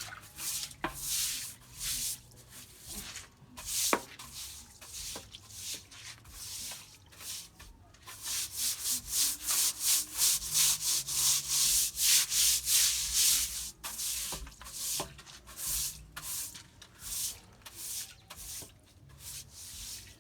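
Repeated scrubbing strokes, rubbing back and forth against a surface. They are louder and quicker, about two strokes a second, through the middle stretch. A brief sharp click about four seconds in.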